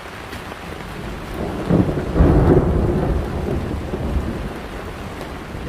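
A roll of thunder swells about two seconds in and rumbles away slowly, over the steady hiss of rain.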